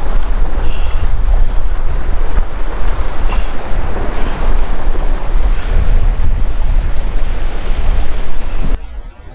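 Wind buffeting the microphone over small waves washing and splashing against the jetty's granite rocks. The sound cuts off abruptly near the end.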